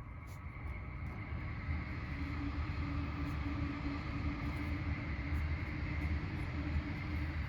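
An engine running: a low steady rumble with a steady hum, growing louder over the first couple of seconds and then holding.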